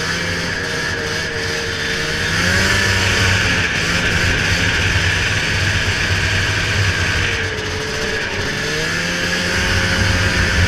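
Ski-Doo snowmobile's 583 two-stroke twin engine, fitted with aftermarket pipes, running under way: its pitch rises about two seconds in, then dips and climbs again near the end, over a steady rushing hiss.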